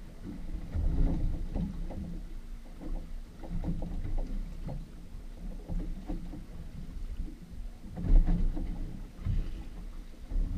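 Water slapping and lapping against the hull of a motorboat stopped at sea, in irregular low knocks, loudest about a second in and again near the end.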